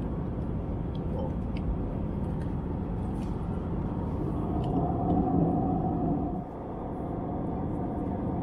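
Steady low rumble of a vehicle in motion. It swells with a humming tone about halfway through, then drops back suddenly.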